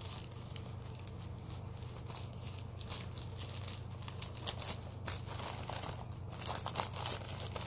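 Packaging crinkling and rustling as items are handled and unwrapped, in scattered short crackles that grow busier near the end, over a low steady hum.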